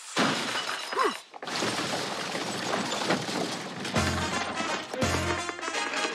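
A crash of something shattering in the first second, with a short falling whistle near its end. Then a music track with low bass notes.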